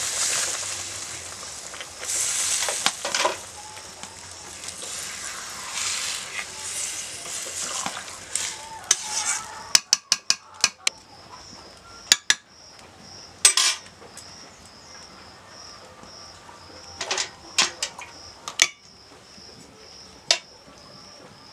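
Water poured into a hot metal kadai of fried spiced pumpkin and potato, hissing and sizzling loudly at first and dying down as the curry goes from frying to simmering. It is then stirred with a metal spatula, with scraping and several sharp clinks of metal on metal in the second half, over a faint high pulsing note.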